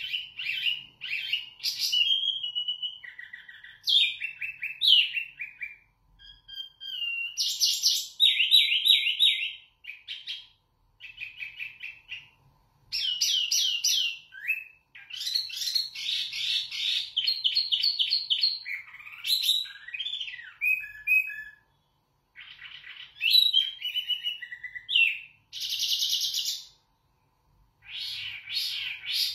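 A caged wambi mini songbird singing a loud, clear song of rapid chirps, trills and whistled phrases, delivered in bursts a second or two long with brief pauses between them.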